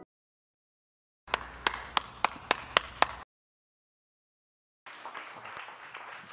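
A person clapping, seven sharp claps at about four a second, cut off abruptly. After a short silence comes a soft, even spatter of applause.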